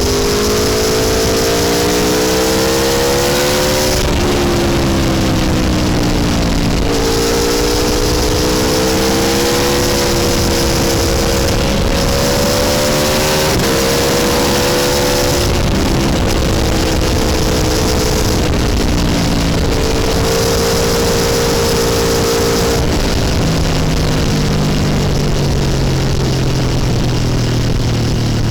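Aprilia Tuono V4 1100 Factory's V4 engine pulling through the gears. The pitch climbs in each gear and drops sharply at each of several shifts, over a steady rush of wind noise. Near the end it eases off and the engine note sinks lower as the bike slows.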